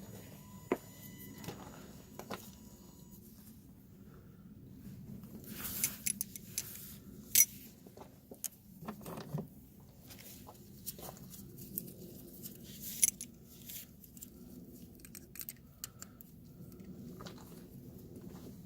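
Scattered clicks, knocks and rattles of small objects being handled, loudest at about 7 and 13 seconds in. A faint steady tone sounds for the first three seconds.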